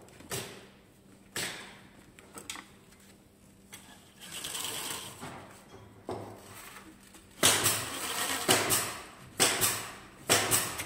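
Wooden beehive frame parts being fitted and fastened: a few scattered taps and clicks, a rustling stretch about four seconds in, then a run of loud sharp strikes about two a second near the end.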